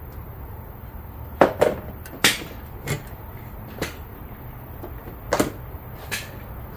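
Sharp clicks and knocks of the leads and clips being handled as the power to an electrolysis rust-removal bath is disconnected: about seven separate clicks spread over a few seconds, over a steady low background noise.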